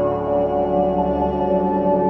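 Background ambient music: sustained, held tones like a singing bowl or synthesizer pad.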